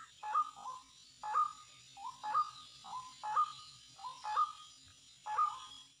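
White-breasted waterhen 'ruak-ruak' call: a short two-note call repeated about once a second, six times.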